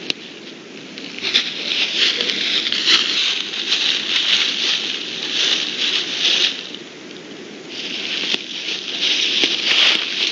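Brown bear at close range rustling the dry leaf litter and rubbing against the trail camera, in two long stretches of scratchy crackling with a few sharp clicks.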